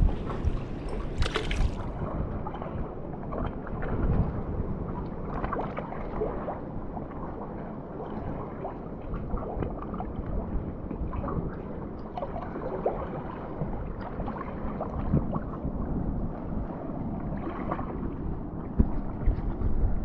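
Muffled rushing water noise around a snorkeler's camera, with scattered small clicks and splashes.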